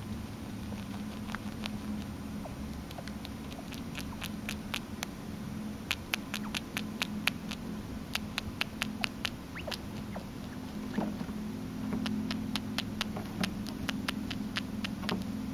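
Baby chinchilla making a run of tiny quick squeaks and clicks, several a second, thickest in the middle and again near the end.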